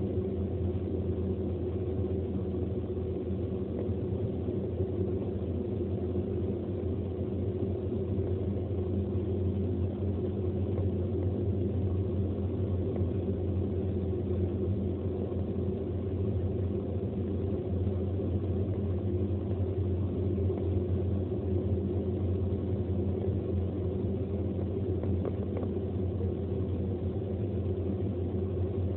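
Steady low rumble of engine and tyre noise inside a car's cabin as it cruises along a motorway, recorded through a phone's microphone.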